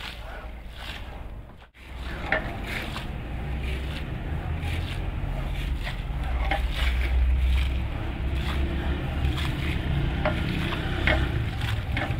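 Rubber squeegees pushing soapy water across a soaked rug on concrete: water swishing and splashing with repeated strokes, over a low steady rumble.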